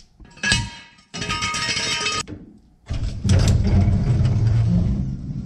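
Hydraulic floor jack being worked: a knock, then about a second of metallic clatter and squeaking that cuts off abruptly, followed by a louder steady low rumble.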